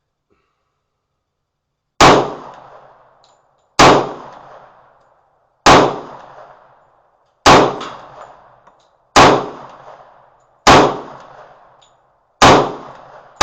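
Magnum Research 1911 pistol in 10mm firing slow, single aimed shots, seven in all, one every one and a half to two seconds, each a sharp crack with a ringing tail, and an eighth right at the end. The pistol cycles through the magazine without a malfunction.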